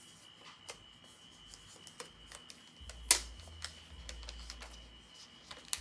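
Scattered clicks and taps of Apple cardboard packaging being handled and opened, with one sharp, louder click about three seconds in and low handling rumble after it.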